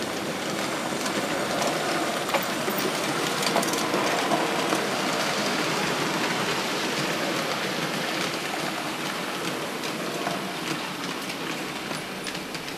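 Märklin HO model train running on the layout's track: a steady rolling hiss and rumble with scattered clicks, swelling a few seconds in and slowly fading.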